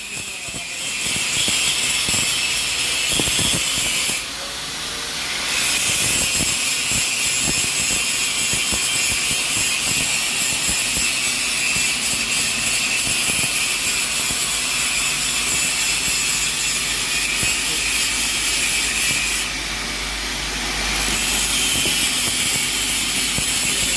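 TIG welding arc hissing steadily, with two brief dips in level, one about four seconds in and one near the end.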